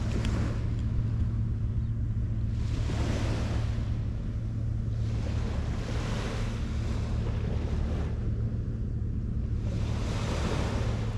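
Small waves washing onto a sand beach, three swells of surf about every three to four seconds, over a steady low hum.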